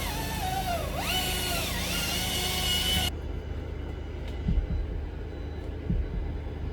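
Chainsaw revving up and dropping in pitch again and again as it cuts through a piece of the dead tree, then stopping abruptly about three seconds in. A low engine rumble with a few dull thumps follows.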